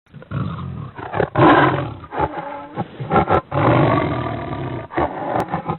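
Big cat roaring and growling, a tiger, in a string of several roars with short breaks between them.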